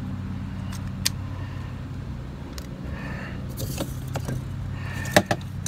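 A few sharp plastic clicks as cable clips are pressed back into a Humminbird Helix sonar unit's cable holder, the loudest pair near the end, over a steady low hum of a distant engine.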